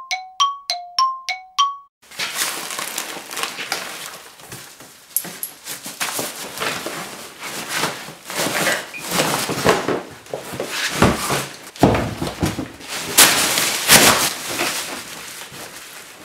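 A short chime jingle of alternating low and high notes, over about two seconds. It gives way to the crinkling and rustling of a black plastic garbage bag being handled and stuffed into a plastic trash can, with a few dull knocks.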